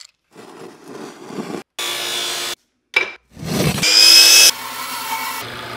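A rapid series of short woodworking sounds: a pine board being handled, then power-tool running. The loudest is a miter saw's motor spinning up about four seconds in, rising in pitch, then cutting off suddenly into a lower steady hum.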